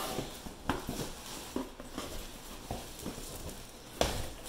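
A cardboard shipping box and the plastic bag inside it being handled while unpacking, giving a string of light taps and rustles and a louder rustle near the end.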